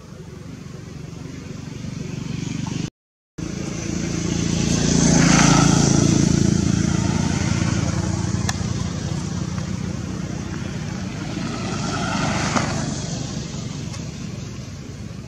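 Motor vehicles passing by, their engine hum and road noise swelling and fading twice, loudest about five seconds in and again about twelve seconds in. The sound cuts out briefly about three seconds in.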